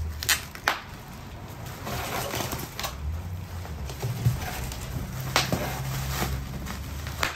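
Shipping-box packaging being handled and opened: scattered sharp knocks and clicks with some rustling, over a low steady hum.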